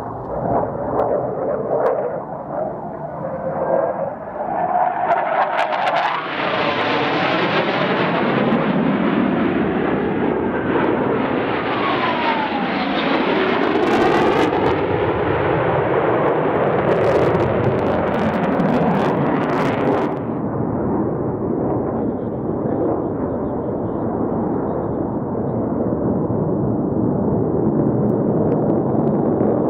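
Blue Angels F/A-18 Hornet jets flying past, their engine noise swelling a few seconds in and peaking for about fifteen seconds, with a falling sweep in pitch as they pass and sharp crackles near the loudest part. The noise then eases to a steady distant rumble.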